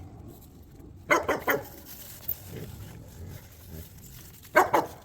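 A dog barking in two short bouts of a few barks each, about a second in and again near the end.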